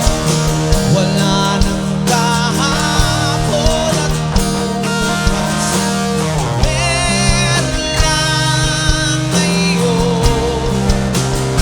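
Rock band playing live, mixed straight from the mixing desk: an electric guitar plays a lead line with bends and vibrato over bass and a regular drum beat.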